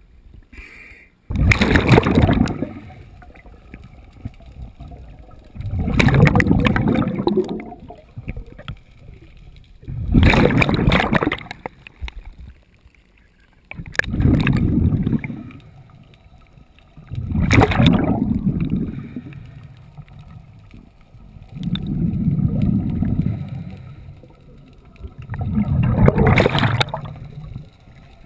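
Scuba diver breathing underwater: exhaled air bubbling out of the regulator in seven long bursts about four seconds apart, with quieter stretches between breaths.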